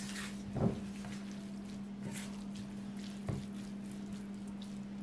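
Silicone spatula stirring and scraping chopped broccoli, carrot and onion around a nonstick frying pan, with two knocks, one just over half a second in and one past three seconds. A steady low hum runs underneath.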